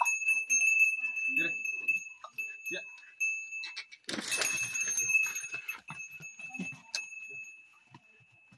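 A small metal neck bell on a calf ringing again and again as the calves jostle and move about, with a loud brushing noise about four seconds in.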